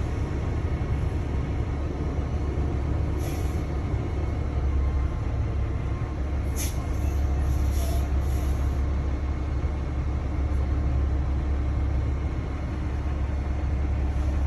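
Steady low rumble of a moving road vehicle as picked up by its dash camera, with a few brief hisses about three seconds in and again near the middle.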